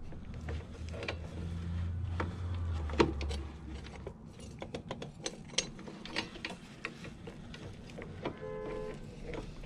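Small metal parts clicking and clinking as hands work the front sprocket and its retainer on the countershaft of a Grom-clone motorcycle during a sprocket swap. A low hum sounds for the first few seconds, and a short pitched tone comes near the end.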